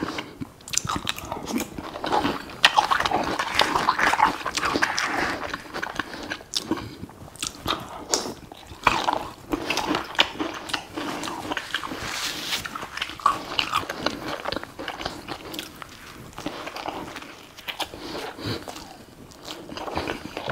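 Close-miked chewing and crunching of food, with irregular bites and wet mouth sounds.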